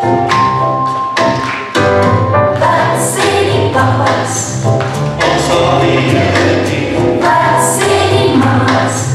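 Gospel song: a choir singing over a band with a steady beat.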